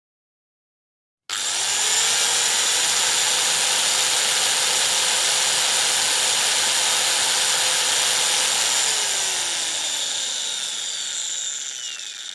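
Electric power drill started suddenly after a second of silence, spinning up, running steadily at full speed, then slowing and winding down as the trigger is let go, its pitch falling near the end.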